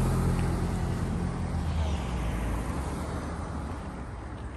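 A motor vehicle going by, its low engine rumble loudest at the start and slowly fading away.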